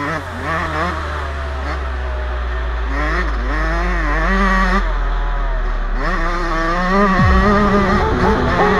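Yamaha YZ125 two-stroke dirt bike engine heard from the bike itself, revving up and dropping back again and again as it is ridden through the gears. A steady low rumble runs underneath and stops about seven seconds in.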